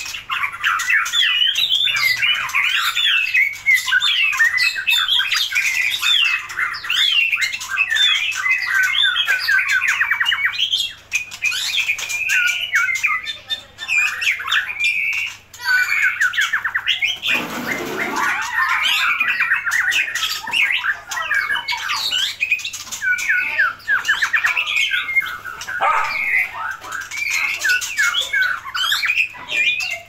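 White-rumped shama singing: a long, varied run of quick whistles and trills with short breaks, and one harsher, lower sound about halfway through.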